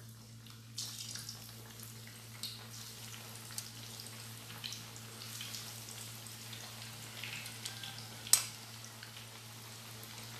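Eggplant slices frying in hot oil in a small pan: a crackling sizzle with many small pops that starts about a second in as slices go in. A single sharp click stands out near the end.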